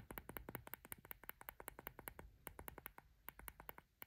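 Rapid, faint clicking of an iPhone 15 Pro's side (power) button pressed over and over through the built-in button cover of a Casetify Impact case, several crisp clicks a second. The clicks sound tactile.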